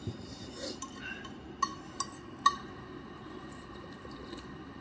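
A spoon clinking against a soup bowl: three sharp, ringing clinks between about one and a half and two and a half seconds in, with a few fainter taps.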